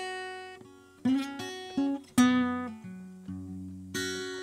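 Capoed steel-string acoustic guitar playing a slow blues, about six plucked chords and notes struck one at a time and left to ring and fade between strikes.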